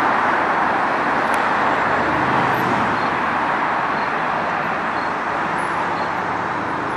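Road traffic on a wide city street: a steady rush of car tyres and engines passing close by, slowly easing off. A faint tick sounds about once a second in the background.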